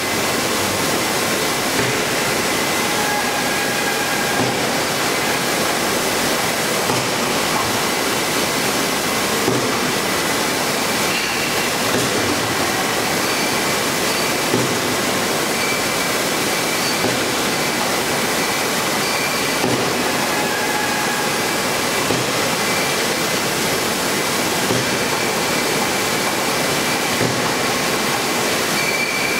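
Steady, even din of a sparkling-wine disgorging line's bottle-handling machinery, with faint high whines that come and go.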